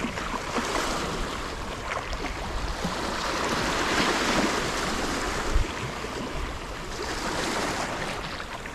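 Sea surf washing against shoreline rocks, one wave swelling and breaking around the middle, with a light wind buffeting the microphone.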